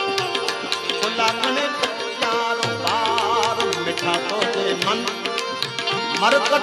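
Live Gujarati bhajan (santvani): a man sings ornamented, wavering melodic lines over a steady harmonium, with tabla strokes beating throughout.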